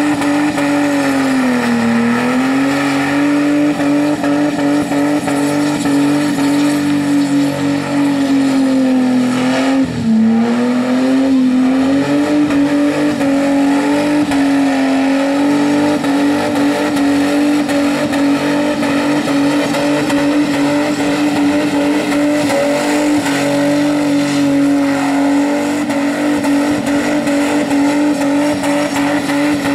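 Holden Commodore ute's engine held at high, steady revs through a burnout, rear tyres spinning on wet bitumen. The revs dip briefly about two seconds in and again around ten seconds in.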